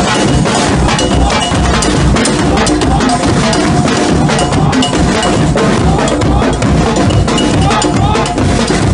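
Marching percussion band of snare drums and bass drums playing a loud, dense drum rhythm.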